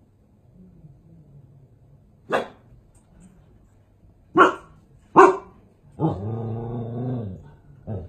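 Pomsky barking at a gnome on the TV: one sharp bark, then two more close together, then a drawn-out low growl lasting over a second, and a last short bark near the end.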